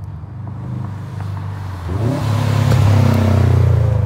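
Straight-piped Subaru WRX STI's turbocharged flat-four exhaust as the car pulls away, getting louder and rising in pitch as it accelerates about two seconds in.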